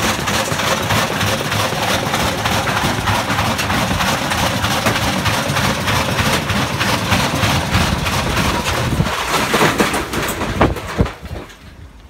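Hoover OPH616 and Candy Grand'O Plus GOF 472 washing machines spinning with bricks loaded in their drums: a loud, continuous clatter of knocking and banging as the unbalanced drums slam and the cabinets jolt. A few last heavy knocks come about ten seconds in, then the noise drops away as the machines wind down.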